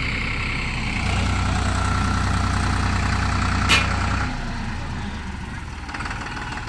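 Tractor diesel engine running with a steady low rumble that grows heavier about a second in and eases off just after four seconds. A single sharp click comes a little before the four-second mark.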